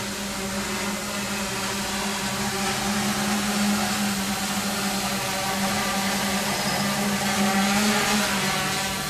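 Quanum Venture quadcopter's electric motors and propellers whirring in flight, a steady humming whir that swells slightly and drops lower in pitch about eight seconds in.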